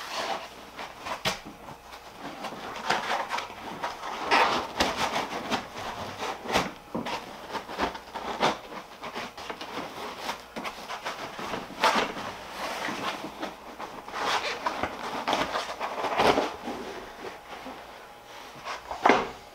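Stiff black foam packing blocks squeaking and scraping as they are pried and pulled off a 3D printer, in irregular rubbing strokes with a few sharper knocks.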